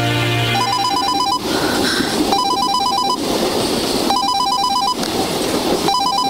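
Telephone ringing with a fast warbling two-tone electronic trill: four rings, each under a second long and a little under two seconds apart, over a steady background rumble.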